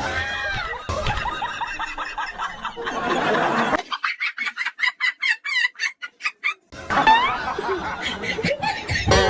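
Edited soundtrack of music mixed with high, squeaky, laugh-like sounds. From about four seconds in to nearly seven, a rapid run of short high chirps comes about eight a second.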